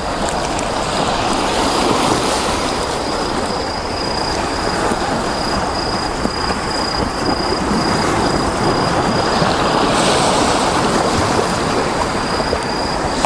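Waves washing onto a pebble beach in a steady wash, with a constant high-pitched insect trill and a few faint crackles from a charcoal grill.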